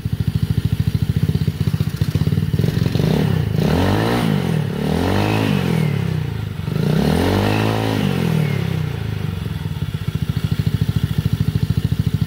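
GY6 four-stroke single-cylinder scooter engine in a Honda Ruckus running at idle with its CVT belt and pulleys uncovered. The throttle is blipped three times in the middle, the revs rising and falling each time, before it settles back to a steady idle.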